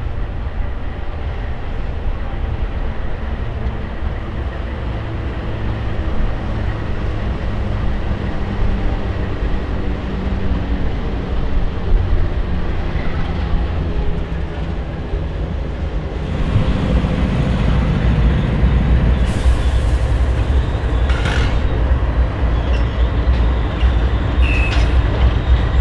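Canadian Pacific coal train with GE ES44AC and AC4400CW diesel locomotives: a steady low rumble of the locomotives' engines and the loaded coal cars rolling past. About sixteen seconds in, the sound turns louder and closer as the GE locomotives' engines run nearby. A few short clicks and a brief high squeal come near the end.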